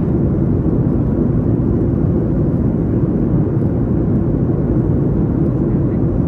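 Steady cabin noise of an airliner in flight: the even, low hum of the engines and rushing air heard from inside the passenger cabin.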